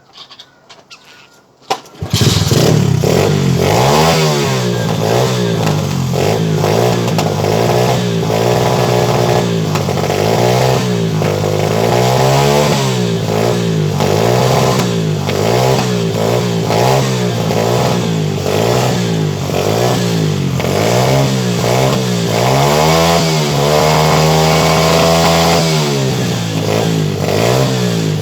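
KXF 125cc pit bike's single-cylinder four-stroke engine starting about two seconds in, then revved in quick throttle blips, rising and falling about once a second, with one longer held rev near the end.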